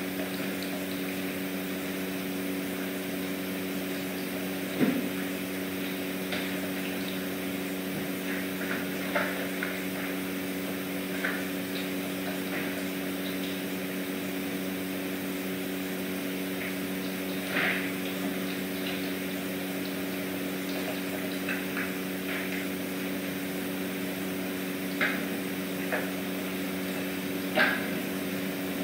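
Steady low machine hum made of a few level tones, with scattered short clicks and taps from kittens eating at their food bowls and moving about; a slightly heavier knock about five seconds in.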